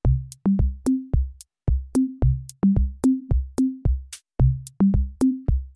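Background electronic music: a drum-machine beat of short, evenly spaced kick-drum hits, each with a short low bass note, and high ticks above.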